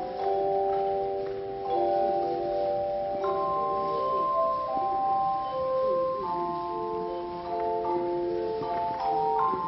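A tone chime ensemble playing a slow melody in chords. Each chime is struck and left to ring for a second or more, so the notes overlap. Near the end, one lower note repeats in short, even strokes beneath held higher notes.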